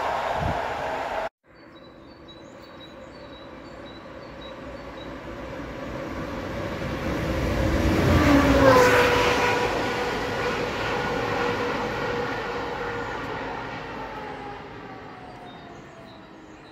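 The rush of an electric passenger train passing below cuts off about a second in. Then a vehicle passes close by: its sound swells to a peak about eight seconds in, its tones drop in pitch as it goes past, and it fades away slowly.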